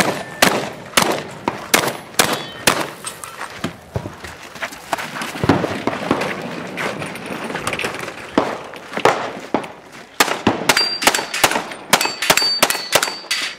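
Rapid gunfire in a long string of shots, roughly two a second, with a few short high ringing tones near the end.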